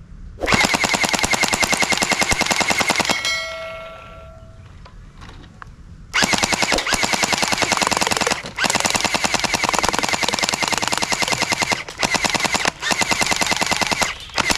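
Toy machine gun's electronic firing sound, a rapid rattle of shots in long bursts: one burst of about three seconds ending in a short ringing fade, then after a pause several more bursts with brief breaks between them.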